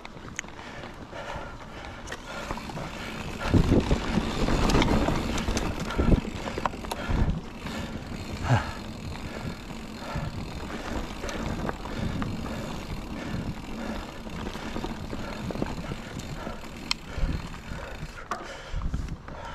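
Mountain bike rolling fast down a dirt singletrack: steady rushing noise of tyres on dirt and passing air, with knocks and rattles from the bike over bumps, loudest from about four to seven seconds in.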